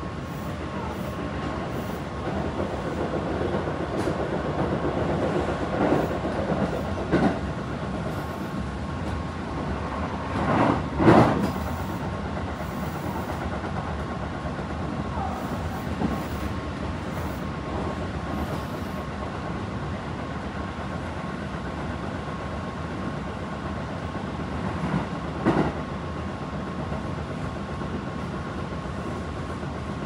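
Cabin running noise of a Tobu 9050-series commuter train at speed, heard in its quiet unpowered control trailer car (kuha): a steady rumble of wheels on rail with a faint steady high tone. A few short louder clatters stand out, the loudest about eleven seconds in.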